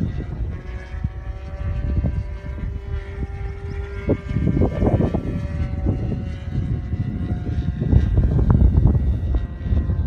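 Super Tigre G90 two-stroke glow engine of an RC aerobatic model plane, fitted with a tuned pipe, droning steadily overhead with its pitch drifting up and down as the plane flies its manoeuvres. Gusts of low rumble from wind on the microphone come and go over it, loudest near the end.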